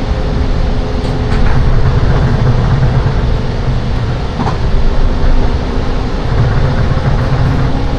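Loud running noise heard inside a Seibu 10000-series Red Arrow limited express train at speed: a steady heavy rumble with a low hum, and a few clicks of the wheels over rail joints.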